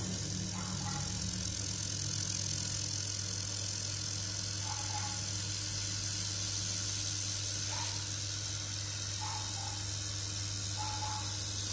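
Steady hiss of shielding gas from a handheld fiber laser welding gun while it welds stainless steel tube, over a low steady hum. A few faint short tones come and go.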